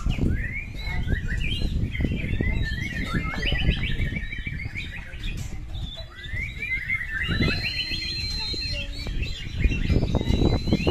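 Several caged white-rumped shamas (murai batu) singing over one another: quick, overlapping warbled phrases, with a held high whistle twice in the second half. A low rumble runs beneath, louder near the end.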